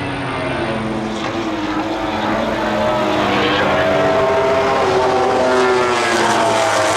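MotoGP race bikes' four-cylinder engines at full racing revs, several heard at once, their notes overlapping and sliding down and up in pitch as they brake and accelerate through the corners.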